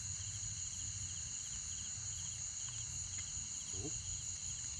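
Insects chirping and trilling: a steady high-pitched drone with a repeated pulsed chirp about twice a second, over a low rumble.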